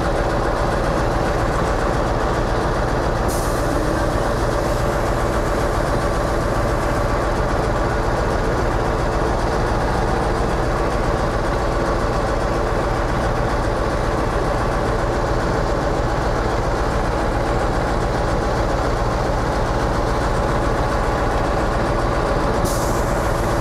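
Scania 143M's V8 diesel engine running steadily at a constant speed, powering the loader crane's hydraulics while the cabin is being lifted and set down.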